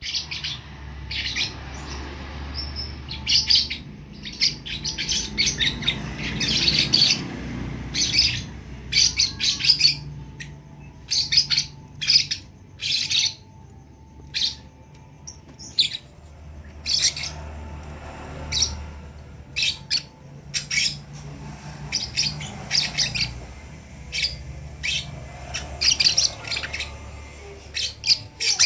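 Young lovebirds chirping: many short, high chirps in quick clusters, with brief pauses between runs, over a faint steady low hum.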